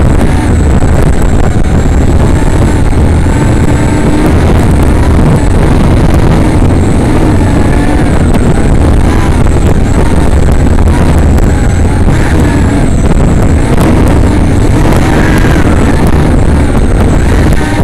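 Brushless motors and propellers of a 3-inch FPV quadcopter whining in flight. The pitch wavers up and down as the throttle changes, over a loud rushing noise.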